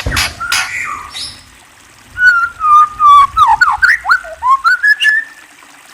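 A murai songbird singing loud, clear whistles. There is a sharp note and a few calls at the start, then a short pause. The phrase then opens with a held whistle, breaks into quick dipping and rising swoops, and ends on a rising note about five seconds in.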